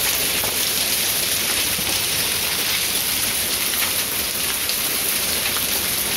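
Heavy rain mixed with hail pouring down in a steady hiss, with scattered sharp ticks of hailstones striking.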